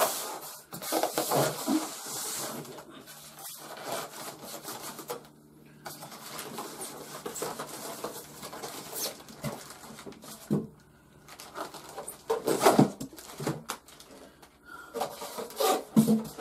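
Cardboard box and packing being worked open by hand: irregular rustling, scraping and tearing with a few knocks, loudest in bursts near the start, about a second in, and again twice near the end.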